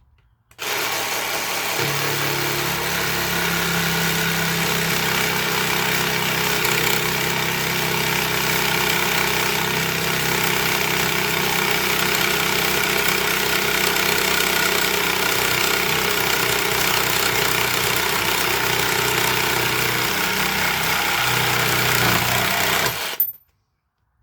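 Dewinner cordless jigsaw fitted with a mild steel cutting blade, on pendulum setting 1, sawing through steel. It starts about half a second in, runs steadily for about 22 seconds and stops suddenly near the end. It is a long, hard cut for this saw, which the owner calls a little extreme, but it got there.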